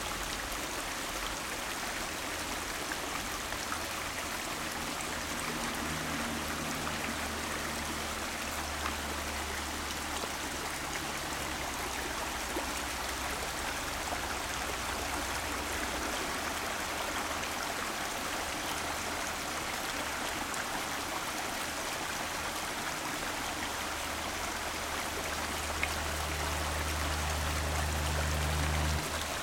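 A shallow rocky stream running steadily over stones, with a low rumble coming and going underneath.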